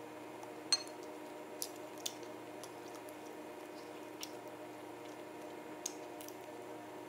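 Eating sounds. A metal fork clinks once against a ceramic plate just under a second in, with a short ringing tone, and a few softer clicks of chewing and utensils follow. Under it runs a steady low hum.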